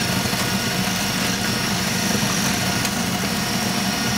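Food processor motor running steadily, grinding lemon sandwich cookies into fine crumbs.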